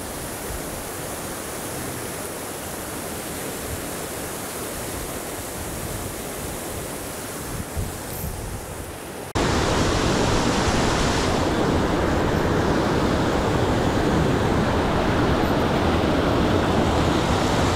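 Steady rush of a flowing river, with a small splash about eight seconds in. Just after, it cuts sharply to a much louder, fuller rush of whitewater rapids spilling over rocks right below the microphone.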